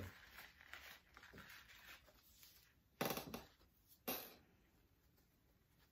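Quiet handling of craft materials on a newspaper-covered table: two brief rustles about three and four seconds in, otherwise near silence.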